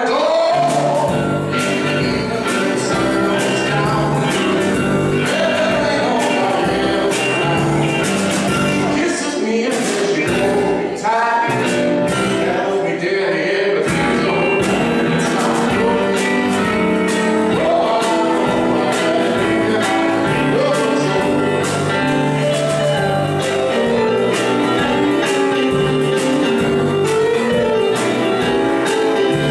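A small band playing live: a man singing over electric guitar, a Technics keyboard and a drum kit, with a steady drum and cymbal beat.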